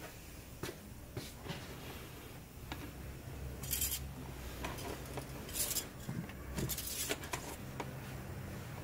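Engine oil dipstick being slid out of and back into its tube, with light metal clicks and scrapes and a few short rubbing noises between about four and seven seconds in.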